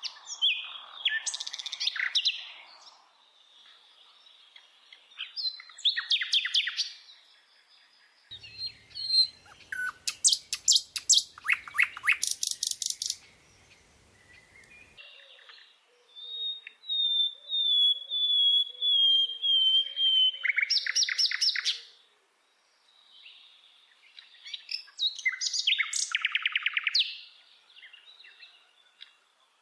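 Birds chirping and singing in separate phrases: bursts of rapid high trills and chirps, with a run of whistled notes falling slowly in pitch about two-thirds of the way through.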